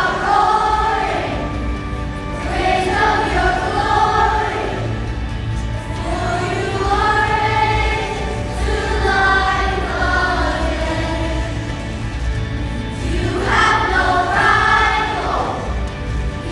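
A choir sings a slow song in long, held phrases over a steady instrumental accompaniment.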